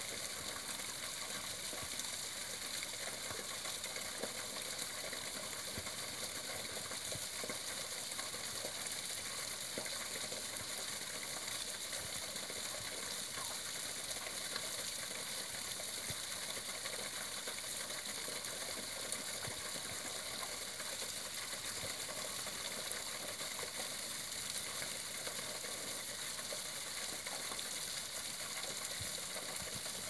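Small waterfall splashing steadily into a shallow rock pool, an even rushing hiss of falling water.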